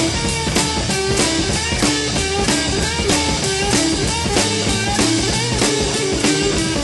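Blues-rock instrumental music: an electric guitar plays a lead line with bent notes over bass and a drum kit keeping a steady beat.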